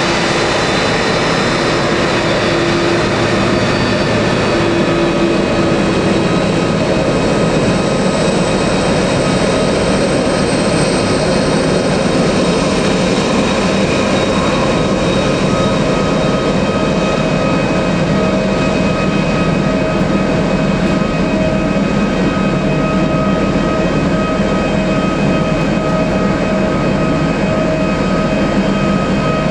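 Jet engines of a Boeing 767-300ER airliner running steadily: a loud, even rumble with a steady high whine over it.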